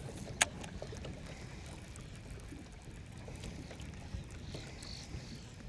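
Steady low rumble of wind and water noise around a small fishing boat, with one sharp click about half a second in.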